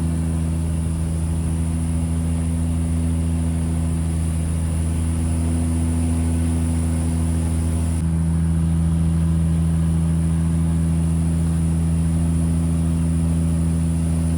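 A fishing boat's engine running steadily, a loud low drone; about halfway through its tone shifts slightly and it gets a little louder.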